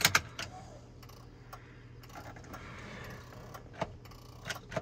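A few sharp, irregular clicks in the cab of a 2001 Dodge Ram Cummins as the key is tried and the engine does not crank, over a faint steady hum. The no-start is later traced to an aftermarket alarm's kill switch, whose module makes a clicking noise.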